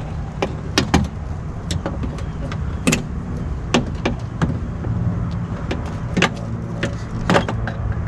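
Plastic door-trim clips and fittings being worked loose and snapped by hand: a dozen or so sharp, irregular clicks and clacks over a steady low rumble.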